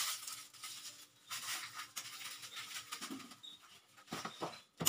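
Soft rustling of fresh sweet potato leaves and stems being handled, in a few short bursts, with a couple of light clicks near the end.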